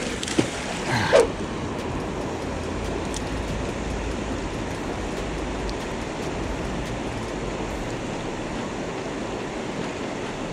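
Steady rush of a fast mountain creek running over rocks, with two short louder sounds in the first second or so.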